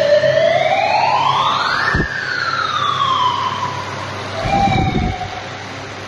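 A siren-like wailing tone that rises steadily for about two seconds and then falls away, followed by a shorter, lower tone with a few dull thuds about four and a half seconds in.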